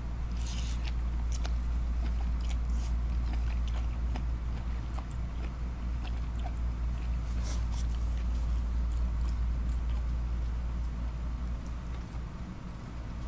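A person eating close to the microphone: chewing and mouth smacks with scattered short clicks from a plastic fork in plastic takeout containers, over a steady low hum.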